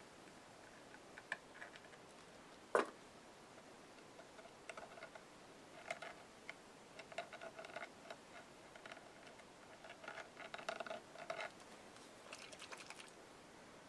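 Faint handling sounds of craft materials on a work table: one sharper click about three seconds in, then clusters of light clicks and small crackling creaks through the middle.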